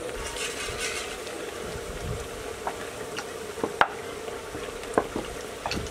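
A luchi frying in hot oil in a metal karai: steady sizzling, busiest in the first second as the dough disc puffs up. A few sharp metal clicks of a slotted frying spoon against the pan come later, the loudest a little before four seconds in.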